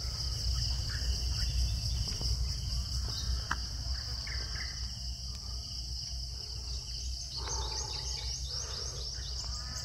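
Steady high-pitched drone of insects with birds chirping here and there, the chirps coming thicker near the end, over a low rumble.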